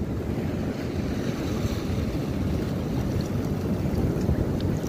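Wind buffeting the microphone in a steady low rumble, with waves washing on the shore behind it.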